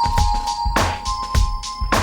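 Electronic music: held synth or organ-like keyboard tones over a steady drum beat.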